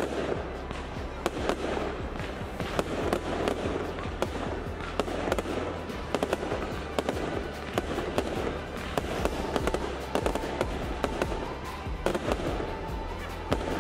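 Fireworks display: aerial shells bursting in a continuous run of sharp bangs and crackling, several per second, with music playing underneath.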